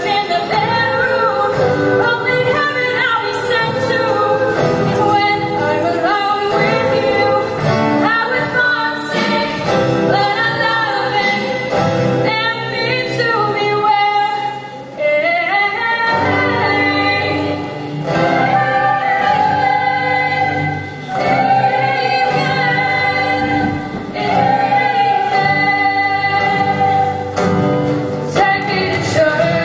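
Show choir singing in harmony, with female lead voices over drum kit and band accompaniment.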